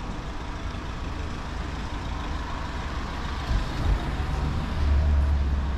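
A heavy road vehicle's engine, such as a bus or truck, rumbling low as it passes on the street, growing louder in the second half.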